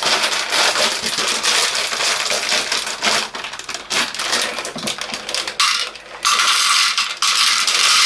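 Crinkling of a plastic pasta bag being opened and handled, and dry fusilli pasta pouring into an empty metal saucepan, the hard pieces clattering against the metal in a dense stream of small clicks.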